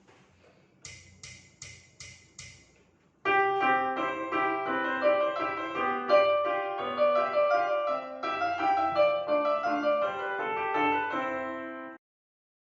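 Five quick, evenly spaced ticks, then piano music, a busy run of many notes, that cuts off abruptly near the end.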